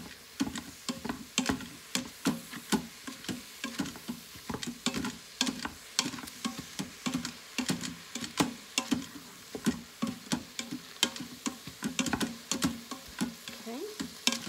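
A plastic Mix 'N Chop tool jabbing and scraping ground beef in a stainless steel cooker pot, an uneven run of knocks and scrapes about two or three a second, over the faint sizzle of the browning meat.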